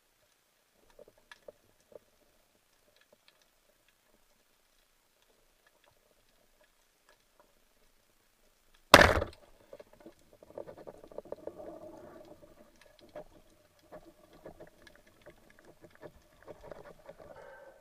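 Underwater shot of a band-powered speargun: one sharp crack about nine seconds in as the rubber bands release. It is followed by irregular crackling and rattling from the shaft and line as the speared barracuda struggles. A few faint clicks come in the first two seconds.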